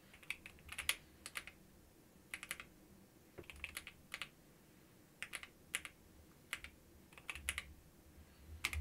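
Faint computer keyboard typing: short bursts of a few keystrokes with pauses between them, as a terminal command is typed out.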